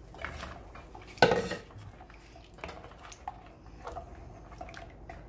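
Plastic ladle stirring curry in a steel pot, knocking against the pot: one loud clack about a second in, then lighter scattered taps.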